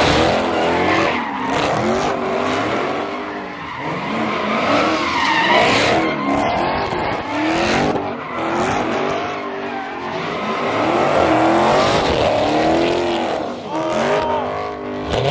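Two Dodge Chargers doing burnout donuts: the engines rev up and down over and over while the rear tyres spin and squeal on the pavement.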